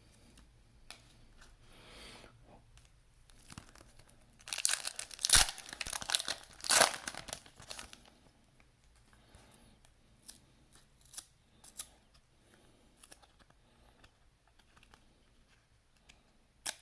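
A sealed trading-card pack's wrapper being torn open and crinkled, loudest for a few seconds in the middle with two sharp rips, with small clicks of cards being handled before and after.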